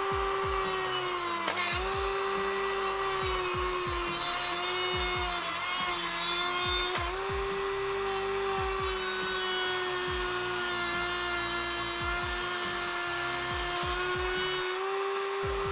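High-speed Dremel rotary tool with a cut-off wheel running at a steady high whine while it cuts across a DDR RAM module's circuit board and memory chip, with a gritty grinding hiss from the cut. The whine sags in pitch briefly a few times as the wheel bites into the board.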